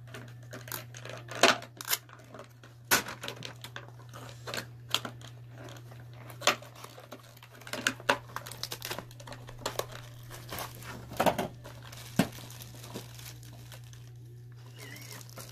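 Tape being peeled and ripped off a small cardboard box, with packaging and a plastic bag crinkling in the hands: irregular sharp crackles and rips, over a steady low hum.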